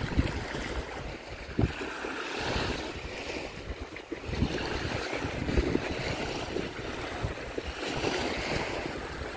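Small Baltic Sea waves washing up onto a sandy shore and drawing back, swelling and fading every few seconds. Wind buffets the microphone with an uneven low rumble.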